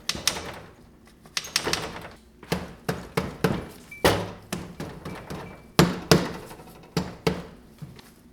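Sharp metal knocks and clanks, about twenty at uneven intervals with a short ring after the louder ones, from hand tools working on a stripped classic Mini 1275 A+ engine block.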